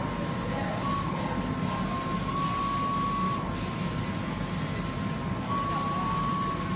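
KASU laser cutter running, a steady low machine hum with a thin high whine that swells for about a second at a time, three times, as its gantry and laser head travel over the fabric.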